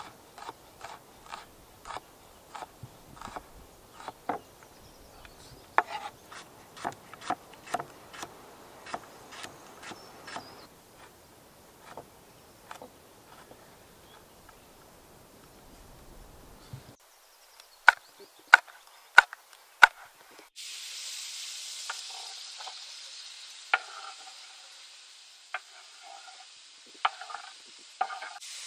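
Chef's knife chopping vegetables on a wooden cutting board, sharp knocks at about two a second, then a few louder single chops. About 20 seconds in, a steady sizzle starts suddenly as the chopped vegetables hit a hot frying pan, with a few knocks of the wooden board against the pan.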